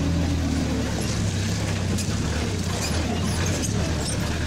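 A motor vehicle's engine running at a steady low hum, with road noise, heard from on board while driving along a rough dirt road.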